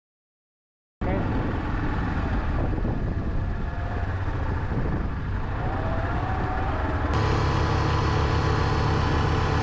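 Silence for about a second, then an ATV engine running as the quad bike is ridden. About seven seconds in, a sudden cut gives way to a steadier engine note.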